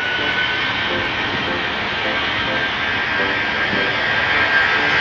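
Jet airliner engines running loud, a steady roar with a high whine held over it.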